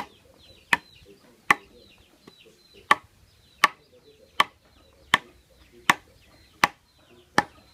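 A wooden stick pounding the bark of a freshly cut monkey jack (hat tree) branch resting on a wooden plank, to loosen the bark for peeling. About ten sharp knocks come in a steady rhythm, a little over one a second.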